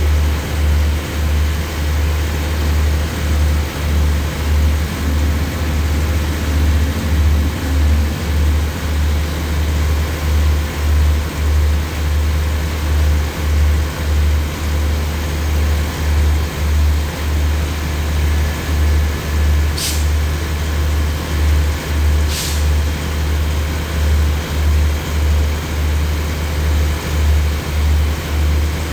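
The standing diesel express train idling: a deep hum that pulses about one and a half times a second. Two short hisses come about two and a half seconds apart past the middle.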